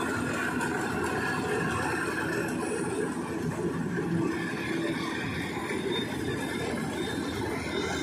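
Lovol RG108 Plus rice combine harvester running steadily while cutting paddy: an even, dense drone of its engine and harvesting machinery.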